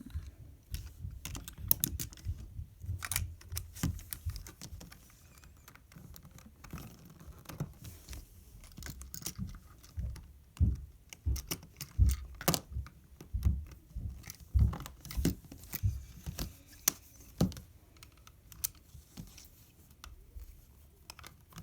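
Plastic LEGO bricks clicking and knocking as they are handled, pushed and slid about. The clicks are irregular and come thicker about halfway through.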